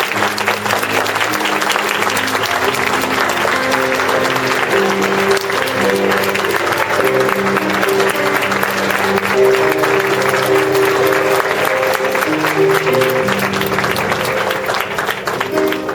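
Applause from a congregation over instrumental music playing slow, sustained chords; both fade out at the very end.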